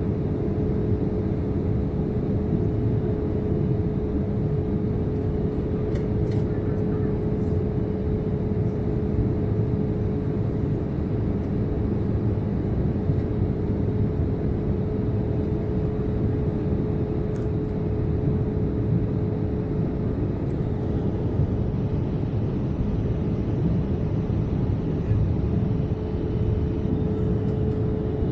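Steady drone of an airliner's jet engines and rushing air, heard inside the passenger cabin in flight, with a constant tone running through it.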